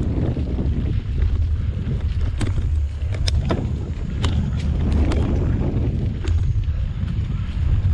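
Mountain bike riding over a dirt singletrack: wind buffeting the camera microphone over a steady rumble of the tyres on dirt and dry leaves. Scattered sharp clicks and rattles from the bike come through the middle.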